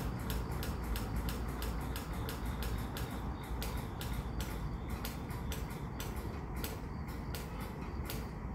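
Slow-moving freight train with a steady low rumble, over which runs an even ticking of about three to four clicks a second.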